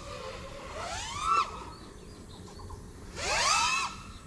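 5-inch FPV quadcopter's brushless motors revving in two short throttle blips, a whine that sweeps up in pitch and drops back each time; the second, about three seconds in, is the louder.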